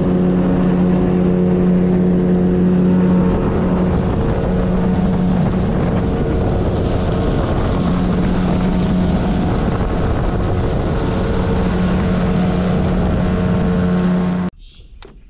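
Boat's outboard motor running at a steady high speed, with rushing water and wind over it; the sound cuts off suddenly near the end.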